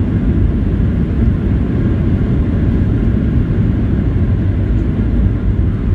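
Steady low rumble and roar inside the cabin of a Boeing 737-700 on its landing rollout, with the ground spoilers raised: engine noise mixed with the wheels running along the runway.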